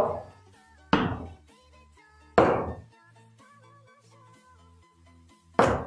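Three sharp chops of a knife through a carrot onto a cutting board, spaced unevenly about a second and a half and three seconds apart, over quiet background music.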